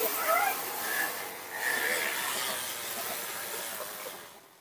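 A few faint, short squeaks from a newborn baby monkey at the milk bottle over a steady background hiss. The sound fades away near the end.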